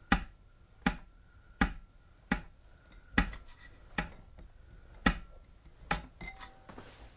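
2018 Wahoo Kickr smart trainer giving sharp, regular clicks, about one every 0.8 seconds, over a faint steady whine. The owner suspects something loose or a slipping bearing.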